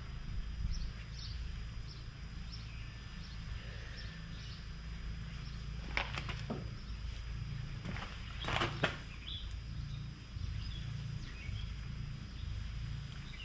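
A cloth wiping across a plastic headlight lens, a few brief swishes about six and nine seconds in, over a steady low hum with faint bird chirps.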